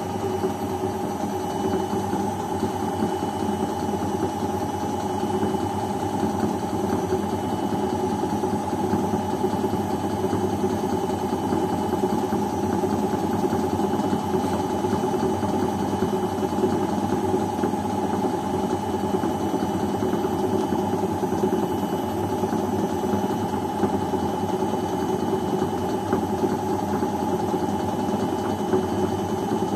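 Beko front-loading washing machine spinning its drum steadily at speed, a constant motor whine and hum with no change in pitch: the spin of a cotton programme set to 600 rpm.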